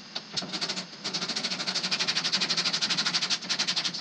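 Hand ratchet wrench clicking rapidly and evenly, about a dozen clicks a second, as bolts are run in to hold a rear apron panel on. A few scattered clicks come first, and the steady run starts about a second in.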